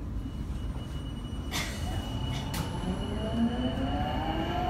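Sapporo Municipal Subway Namboku Line 5000-series train heard from inside the car as it pulls away: over a steady low rumble, the drive's whine comes in about two seconds in as several tones rising together in pitch, growing louder as the train gathers speed. Two short knocks sound about a second apart shortly before the whine begins.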